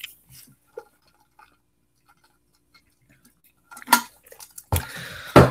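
Sipping a drink through a straw from a tumbler: faint slurps, swallows and small clicks. About four seconds in comes a sharp knock, then a louder breathy rush that peaks near the end.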